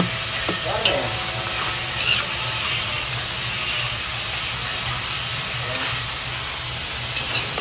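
Tomatoes, onion and chili frying in oil in a metal wok, sizzling steadily, with a metal spoon stirring through the pan and a few faint ticks against it.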